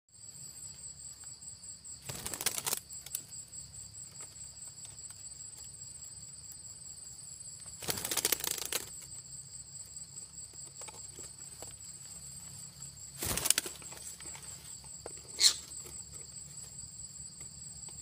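Insects trilling steadily in two high, pulsing pitches, with three short bursts of rustling noise and one sharp click-like chirp near the end.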